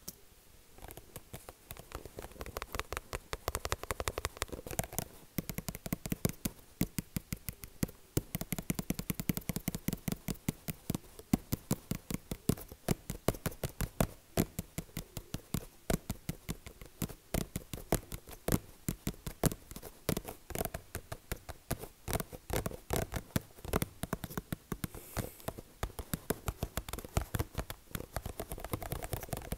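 Rapid tapping, several quick taps a second, uneven in loudness and running almost without a break.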